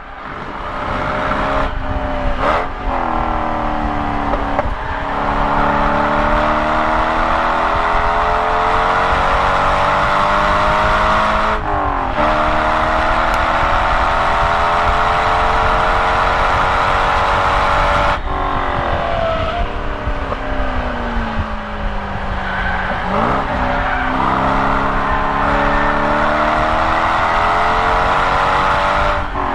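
Chevrolet Corvette C5 Z06's LS6 V8 heard from inside the cabin, accelerating hard with the revs climbing and dropping at several upshifts. About two-thirds through the throttle closes sharply and the revs fall, with a brief rev blip on a downshift, before the engine pulls again.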